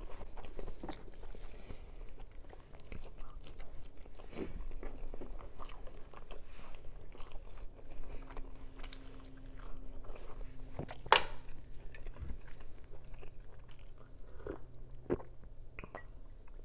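Close-miked mouth sounds of a person chewing and biting food: a steady run of small clicks, with one sharper, louder click about eleven seconds in.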